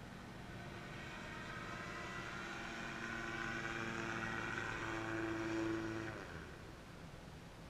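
Engine of a weight-shift microlight trike flying past: a steady engine note that grows louder for a few seconds, then drops in pitch and fades about six seconds in as the aircraft goes by.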